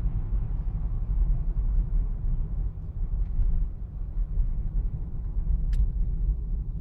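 Inside-cabin sound of a BMW 523i E61 touring, with its N52 2.5-litre straight-six, cruising at about 100 km/h: a steady low rumble of engine and road noise. A brief sharp click about six seconds in.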